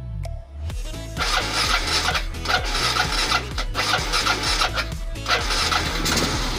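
Kawasaki Fury motorcycle engine starting about a second in and then running, with a few brief dips in the sound. It is restarting after a stall, now that the spark plug has been checked and refitted.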